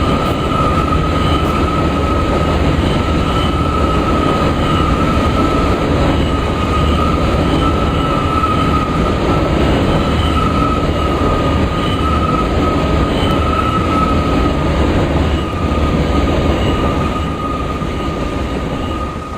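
Long coal train rolling past, with a steady rumble of wheels on rail and a continuous high wheel squeal. The sound eases slightly near the end.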